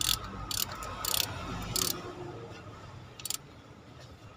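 Socket ratchet clicking in five short bursts as it is worked back and forth, tightening the bolts of a new water pump.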